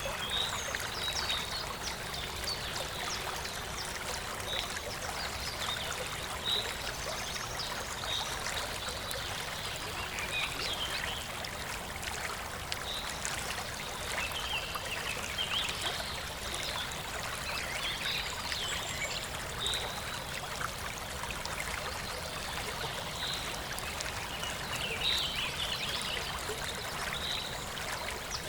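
A stream running steadily, with small birds chirping short high calls every second or two over the water.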